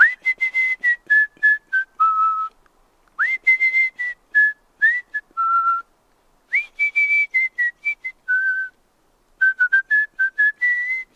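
A person whistling a tune: clear single-tone notes stepping up and down, in four short phrases with brief pauses between them.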